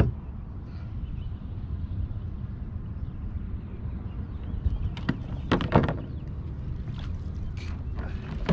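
Wind rumbling steadily on the microphone over open water, with sharp clicks and knocks from handling a freshly caught pike and tackle in the kayak, clustered about five to six seconds in.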